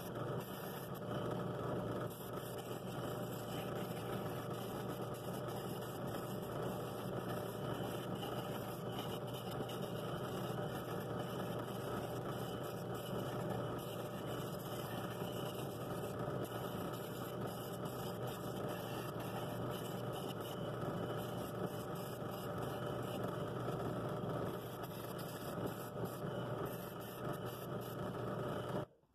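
Flex pad sander running steadily as a pine bowl is held against its abrasive disc; it cuts off suddenly near the end.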